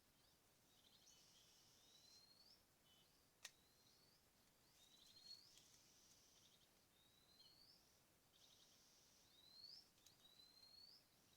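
Faint bird calls: a short rising whistled note repeated every second or two, with raspy buzzing notes between them. A single sharp click comes about three and a half seconds in.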